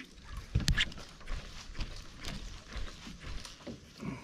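Irregular light knocks and clicks, with one sharper knock a little under a second in.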